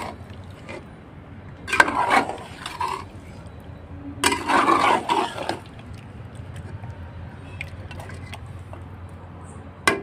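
Flat steel spatula stirring and scraping chicken through thick yogurt masala in an aluminium pot, in two wet, squelching strokes about two and four and a half seconds in.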